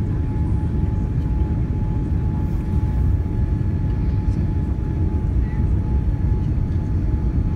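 Cabin noise inside a Boeing 787 Dreamliner on final approach with flaps extended: a steady low rumble with a thin steady tone running through it.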